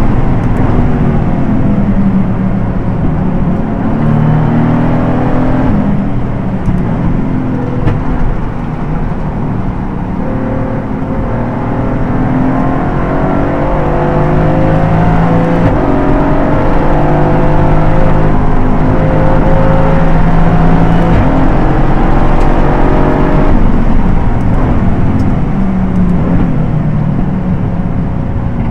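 Aston Martin GT4 race car's V8 engine at racing speed, its pitch climbing and falling again and again as it accelerates out of corners and comes off the throttle for braking and downshifts.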